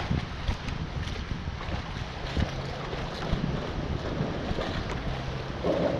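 Wind buffeting the microphone on a boat on open water, a gusty rush over a faint steady low hum.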